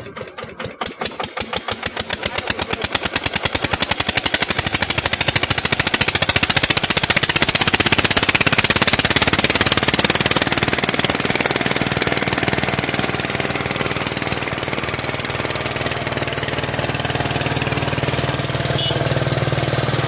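Stationary diesel engine driving a sugarcane crusher through a belt and flywheel. It picks up speed and grows louder over the first several seconds, then runs steadily with a fast, even beat.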